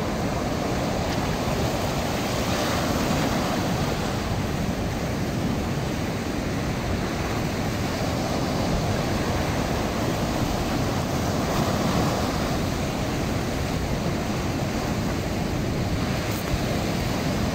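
Steady rush of ocean surf breaking and washing over rocks and sand, with wind on the microphone.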